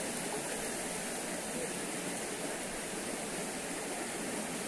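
Steady rushing of stream water, an even noise with no separate events.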